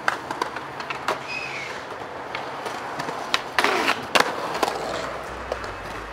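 Skateboard wheels rolling on concrete, with several sharp clacks of the board striking and grinding a concrete ledge, the loudest two about three and a half and four seconds in. Low bass music comes in near the end.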